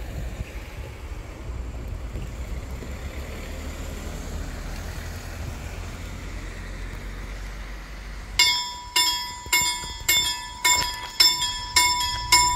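A Swedish railway level-crossing warning bell starts ringing about eight seconds in, striking evenly a little under two times a second. The bell signals that the crossing has activated for an approaching train.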